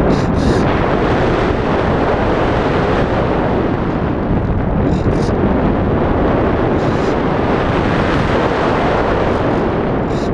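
Loud, steady wind noise from the airstream rushing over the microphone of a camera mounted on a model aircraft in flight.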